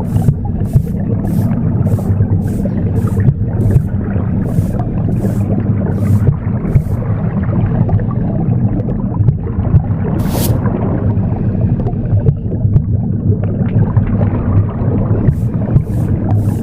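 Broom sweeping in short brushing strokes, about two a second. The strokes stop about seven seconds in, with one more a few seconds later, and start again near the end. Underneath runs a steady, low whooshing rumble of womb sound.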